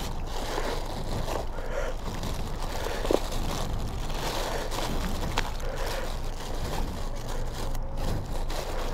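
Thin plastic takeout bags rustling and crinkling as they are pushed and pressed into a motorcycle tail bag, with a couple of sharp clicks among the handling.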